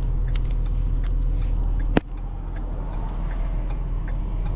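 Vehicle engine running steadily with a low rumble. A sharp click comes about two seconds in, after which the sound is slightly quieter, and faint regular ticks come about every two-thirds of a second.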